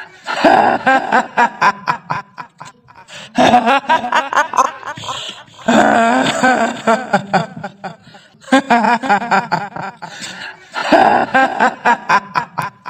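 High-pitched female ghostly cackle, the "hihihi" laugh of the kuntilanak of Indonesian folklore, coming in about five bouts with short breaks between them.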